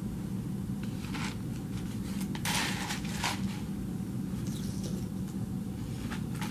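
Steady low hum of room ventilation, with a few short scraping and rustling noises as a spoon and a cup are handled while eating, the longest about two and a half seconds in.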